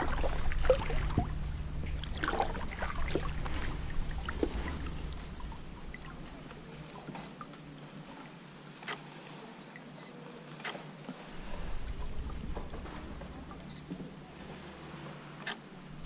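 Knocking and rustling from the kayak and gear being handled among the water plants for the first few seconds, then a DSLR camera's shutter clicking three times, with a short high beep shortly before each shot.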